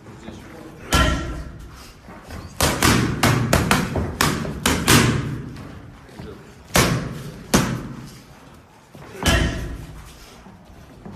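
Boxing gloves punching focus mitts: sharp slaps, some single and some in quick combinations of two to four, with pauses between the combinations.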